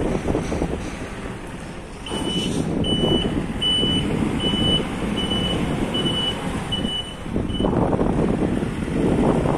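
MST M644 Plus backhoe loader's diesel engine running, with its reversing alarm beeping about eight times in a steady rhythm while the machine backs up. The engine grows louder just after the beeping starts and again after it stops.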